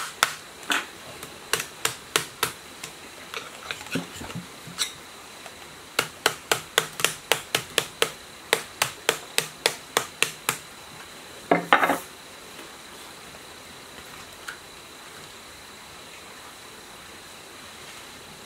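Bamboo stick tapping on the copper windings of an electric motor stator, pressing the coil ends into shape: sharp taps with a slight ring, a quick run of them at about three a second, then one brief louder scrape about two-thirds of the way in. After that only a faint steady background hiss.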